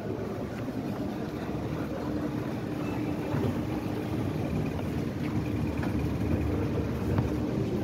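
Inclined moving walkway running: a steady low mechanical rumble with a constant hum.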